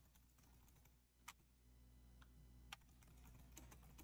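Faint computer keyboard typing: a few separate keystrokes, then a quicker run of soft keystrokes near the end.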